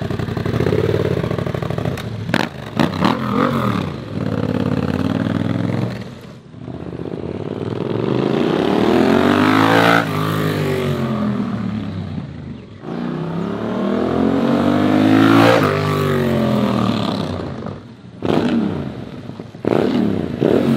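2022 Yamaha R7's 689 cc parallel-twin through a Leo Vince full exhaust system, accelerating hard and passing close by several times. The engine pitch climbs under throttle and drops as the bike goes past. The loudest passes come about ten and fifteen seconds in.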